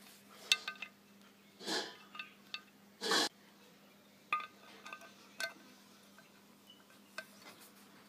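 Small brass fittings and a wrench clinking and tapping against a metal supercharger housing: a scatter of sharp metallic clicks, with two brief, louder rushing sounds about two and three seconds in.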